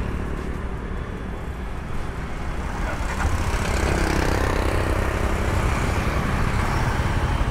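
Motorcycle pulling away and riding, engine rumble and rushing wind noise building up about three seconds in and then holding steady.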